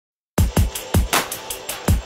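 Electronic background music with a fast, heavy drum beat of deep kicks and sharp snare hits, starting about a third of a second in.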